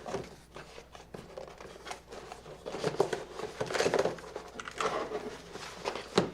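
Cardboard box and packaging rustling, crinkling and scraping in irregular spurts as a keyboard is lifted out of its box, with a few light knocks.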